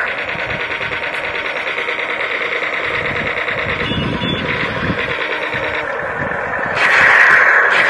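Toy RC army tank running: a steady whirring from its small motors mixed with a buzzy electronic tank sound, getting louder near the end, with a few low thuds in the middle.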